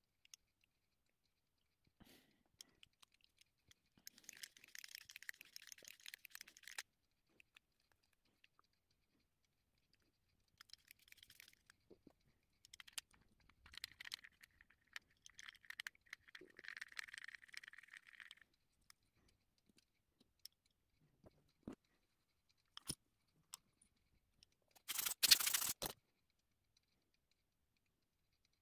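Faint handling sounds from a Helios 44-2 camera lens worked on by hand: intermittent rubbing and scraping of fingers and tissue against the metal lens barrel as the rear part is reassembled, a few small clicks, and a short, louder scrape near the end.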